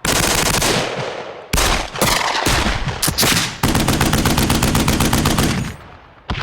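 Automatic gunfire in several rapid bursts, the longest lasting about two seconds and dying away in echo, followed by a single shot near the end.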